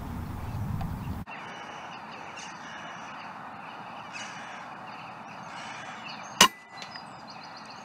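A single sharp shot from a .22 Daystate Delta Wolf PCP air rifle, about six seconds in, over quiet outdoor background with a few faint bird calls.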